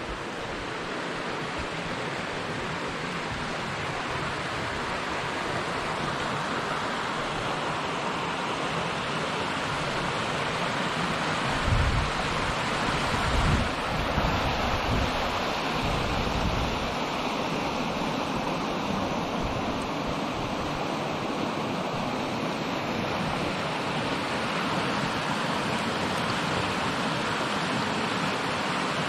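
Steady rushing of a shallow river pouring over small rock-ledge cascades, growing slightly louder through the first half. A few low rumbles of wind on the microphone come about halfway through.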